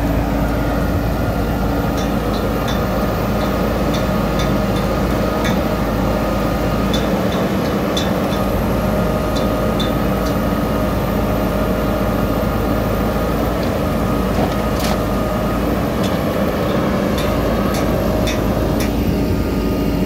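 JCB backhoe loader's diesel engine running steadily under load at close range, with scattered light clicks and clanks.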